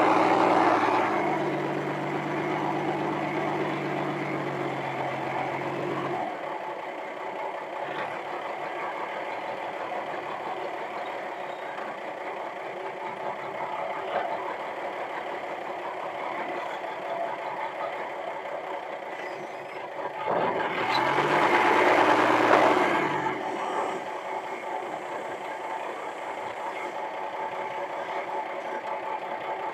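Forklift engine running, louder for the first few seconds and then settling to a lower, steady run. About two-thirds of the way through it revs up and back down over a couple of seconds.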